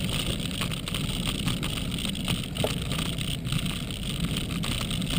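Wind and road noise on a bike-mounted camera as the bicycle rolls along, a steady rushing with small clicks and rattles from the bike now and then.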